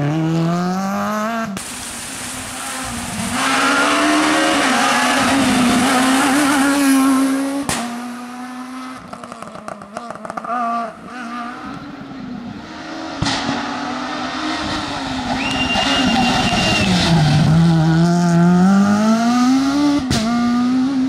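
Renault Clio S1600 rally car's 1.6-litre four-cylinder engine driven hard past the spectators. It revs up, drops in pitch at each gear change or lift, then climbs again. Several passes are cut together, so the sound changes abruptly a few times.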